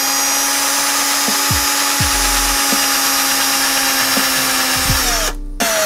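Cordless drill running steadily at one speed, boring a small hole into the wooden lure body. It stops about five seconds in, then gives one short burst near the end that winds down in pitch.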